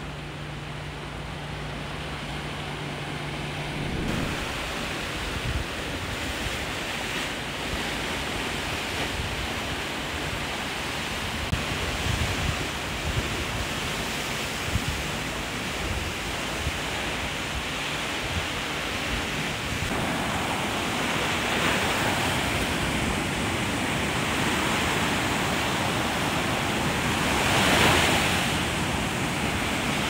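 Sea surf: waves washing and breaking on the shore in a steady rush, with a wave breaking louder about two-thirds of the way in and a bigger one near the end.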